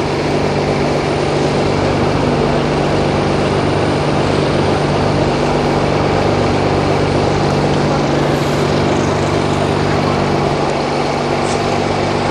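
Heavy engine idling steadily: a low, even hum with a constant rushing noise over it.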